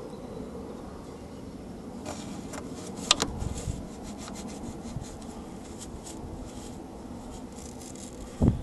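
Lake Country foam-on-a-stick swab scrubbing in and out of a Toyota Corolla's mesh grille, a series of short scratchy rubbing strokes from about two seconds in, loudest around three seconds. A thump near the end.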